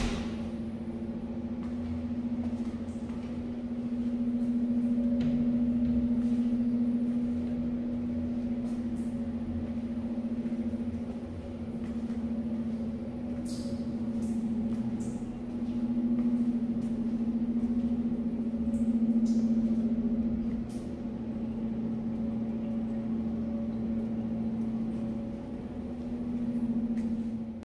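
Steady single-pitched mechanical hum in a tiled restroom, rising and falling slightly in loudness, with a few faint clicks.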